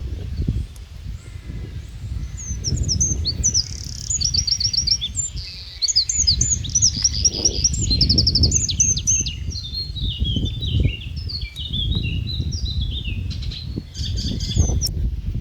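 Several small songbirds chirping and singing, with quick rapid trills and a run of short falling notes, over a constant low rumbling noise.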